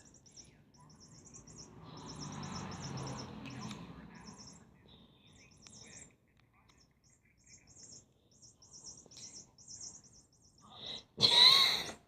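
A small pet bird chirping in quick, high-pitched runs, with short pauses between runs. A soft rustling comes about two seconds in, and a loud, sharp sound comes near the end.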